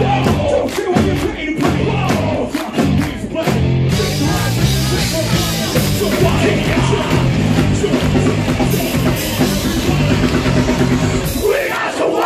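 Metalcore band playing live through a club PA: pounding drum kit, heavy guitars, bass and synths, with a vocalist on a microphone. Sharp drum hits stand out in the first few seconds before the sound thickens, and the lowest notes drop out briefly near the end.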